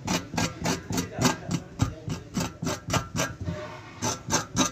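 Rapid, regular taps or knocks, about five a second, with a short pause about three and a half seconds in.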